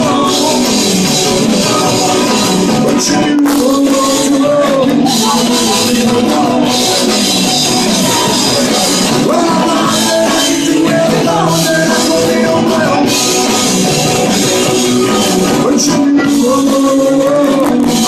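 Live rock-and-roll band playing: a lead singer and a second voice sing into microphones over strummed acoustic guitar and the rest of the band.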